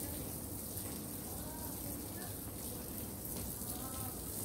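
Steady outdoor background hiss with some low rumble, and faint distant voices now and then.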